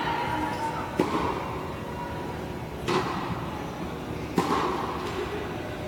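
Tennis ball struck by rackets during a rally: three sharp pops about one, three and four and a half seconds in, each ringing briefly in the large indoor court hall.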